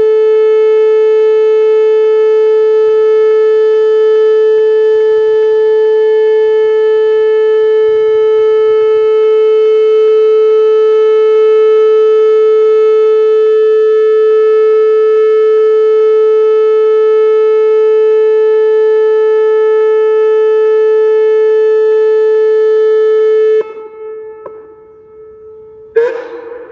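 Whelen WPS-2806 electronic outdoor warning siren sounding one steady, unwavering tone. The tone cuts off suddenly about three seconds before the end, leaving a faint echo, and the siren's recorded voice message starts just at the end.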